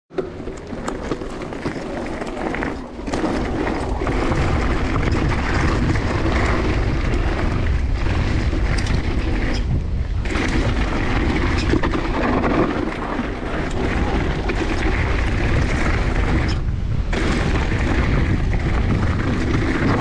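Wind buffeting the action-camera microphone, with tyre noise from a mountain bike riding down a dirt trail. The sound is quieter for the first few seconds, then steady, with brief drops about 3, 10 and 17 seconds in.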